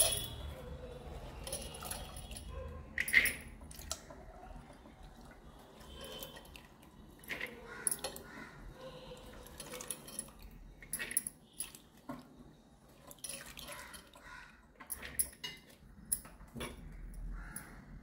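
Pomegranate seeds being scooped and crushed by hand in clay pots: soft wet squishing broken by irregular clicks and knocks from bangles clinking together and against the pot rims.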